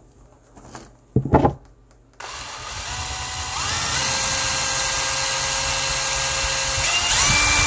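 DeWalt XR cordless drill with a 4 mm masonry bit, gently drilling a hole into a plastic Lego minifigure's head. A short knock comes about a second in. The drill motor starts about two seconds in and runs with a steady whine whose pitch steps up twice.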